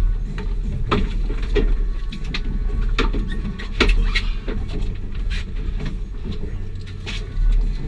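A fishing boat rocking at sea gives a steady low rumble, over which come irregular sharp clicks and knocks as two anglers work their bent rods and reels and move about the deck.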